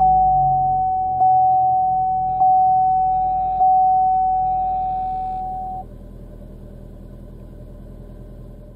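A Chevrolet Sonic's dashboard warning chime dings about once every 1.2 seconds, each ding fading, and stops about six seconds in. Under it the engine idles just after start-up.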